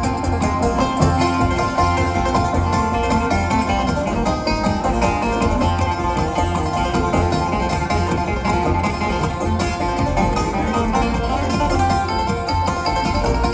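Live bluegrass string band playing an instrumental passage: banjo picking over acoustic guitar and mandolin, with upright bass underneath.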